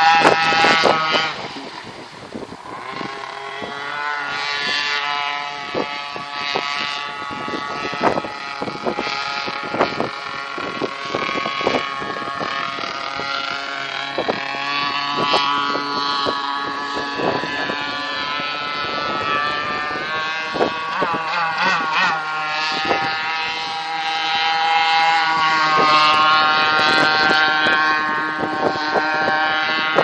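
Motorboat engine running, its pitch rising and falling, with many short knocks scattered through it.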